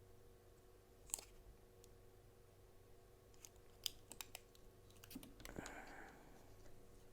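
Faint scattered clicks and taps of small knife parts being handled as a Spyderco Delica is put back together, with a short rustle about five and a half seconds in.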